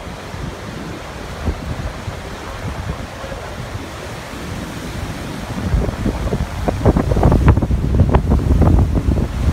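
Steady rushing roar of the Niagara River rapids, with wind buffeting the microphone that grows stronger from about halfway through.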